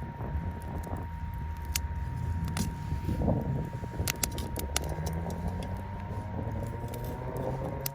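Wood fire crackling, with irregular sharp pops over a low rumble. Underneath runs a faint, steady electronic 936 Hz tone.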